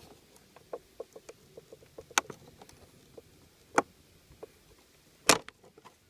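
Small plastic clicks and creaks with three sharper snaps spread through, the last the loudest, as the convex mirror glass of a Ram tow mirror is pressed and wiggled against its retaining clips to work it loose.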